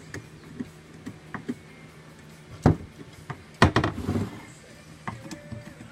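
Screwdriver turning a screw into the tensioner roller of a plastic car-window regulator, with light clicks of the tool and parts. Louder knocks come a little before halfway and again about two-thirds of the way through.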